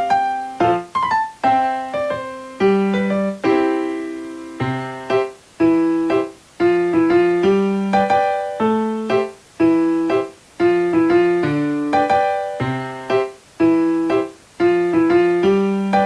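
Background music: a solo piano or electric piano playing a light melody in short struck notes that fade after each strike, in phrases with brief pauses between them.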